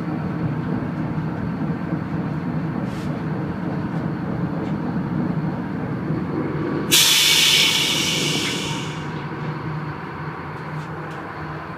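Tugboat engine running with a steady drone. About seven seconds in, a sudden loud hiss cuts in, then fades away over about two seconds.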